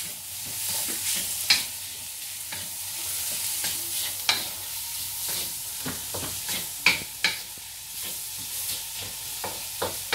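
Diced chicken frying and sizzling in a wok, with a wooden spatula scraping and knocking against the pan as it is stirred; the scrapes come irregularly, every second or so, over a steady sizzle.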